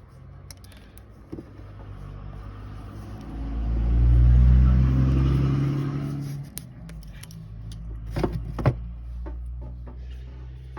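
A motor vehicle driving past, its engine sound swelling for a few seconds and then fading, over a low steady hum. A few sharp clicks follow near the end.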